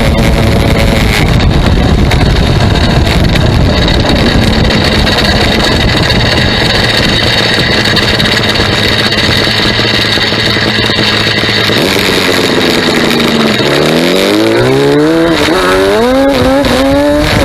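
Yamaha Banshee 350's twin-cylinder two-stroke engine running loud through Paul Turner midrange headers with Fatboy silencers. It holds high revs, the revs drop about twelve seconds in, and then it accelerates in repeated rising sweeps of pitch.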